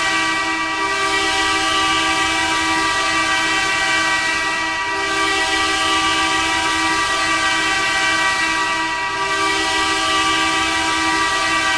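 Bakersfield Condors' arena goal horn blaring in a long, steady, chord-like blast, easing briefly about every four seconds. It is the signal of a home-team goal.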